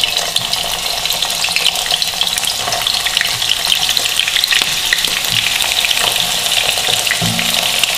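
Whole potatoes frying in hot oil in a pan: a steady sizzle with dense, fine crackling.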